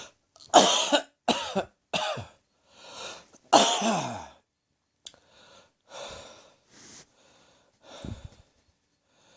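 Heavy acid-reflux cough: four hard, voiced coughs in the first four seconds or so, with a sharp in-breath before the last, then quieter rasping breaths.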